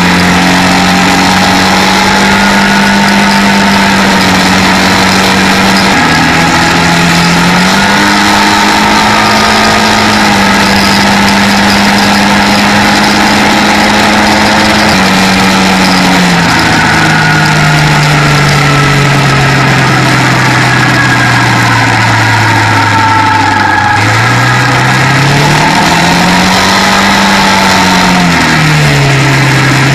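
Quad bike (ATV) engine running on the road. Its pitch holds fairly steady, with a brief dip and rise about six seconds in. From about halfway it falls slowly as the quad slows, then climbs again sharply a few seconds from the end, all over a steady rushing noise.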